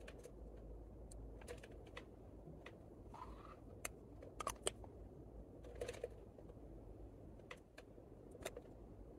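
A plastic lipstick case clicking and tapping as it is handled, the cap taken off and the tube turned over in the fingers: a string of scattered, irregular clicks, with a short squeak about three seconds in.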